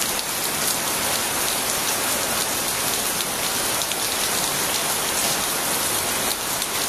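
Heavy rain shower falling steadily, a dense hiss of drops pattering on surfaces.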